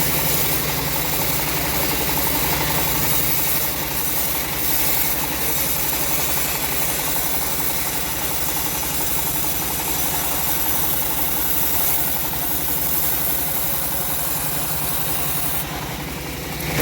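The engine of a home-built bandsaw mill running steadily, a continuous mechanical hum with vibration.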